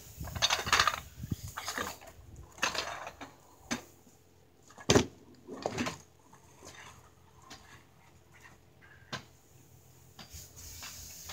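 Kick scooter being picked up and ridden off over pavement: the wheels roll and scrape and the deck clatters in the first few seconds, a sharp knock comes about five seconds in, and the sounds then fade as it moves away.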